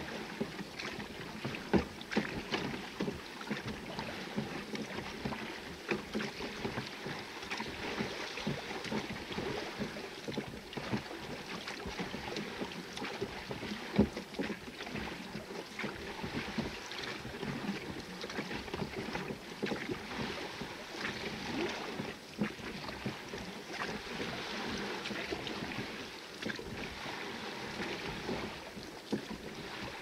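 Small dinghy being rowed with a pair of oars: steady water splashing and lapping against the hull, with frequent short knocks and splashes from the oar strokes. The loudest knock comes about 14 seconds in.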